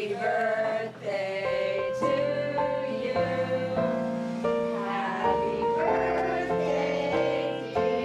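Music: a melody in held notes stepping from pitch to pitch over a bass line, with singing voices at the start.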